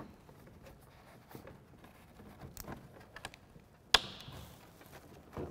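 Faint rustling and small ticks of hands working plastic parts and wiring, then one sharp click about four seconds in as the heated-seat wiring connector snaps onto its switch.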